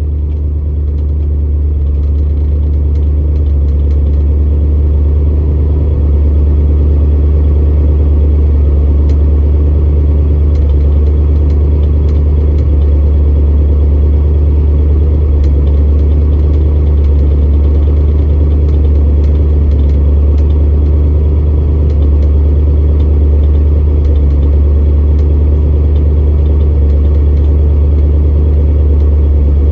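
Old pickup truck's engine idling steadily.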